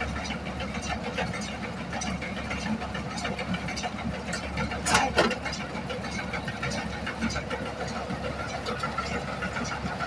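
Tractor engine running steadily while powering a Garud round baler picking up and baling straw, with constant rattling and clicking from the baler's mechanism. A brief, louder clatter comes about five seconds in.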